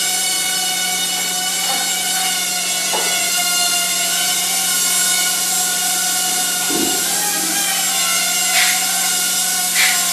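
Hubsan H107D mini quadcopter's four coreless motors and propellers whining steadily in flight, the pitch wavering briefly a little past the middle. A few short taps sound in the last couple of seconds.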